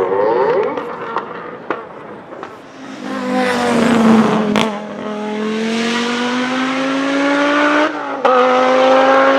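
Audi Quattro S1 E2's turbocharged 2.1-litre inline five-cylinder engine under hard acceleration. The note eases off and is quieter in the first half, then climbs slowly and steadily under load from about three seconds in. It breaks off briefly with a sharp crack about eight seconds in, then carries on. A few other sharp cracks are heard.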